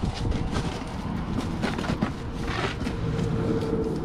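Cardboard box flaps being pulled open and the straw and fabric contents rustling, with a few crackly scrapes, over a steady low hum.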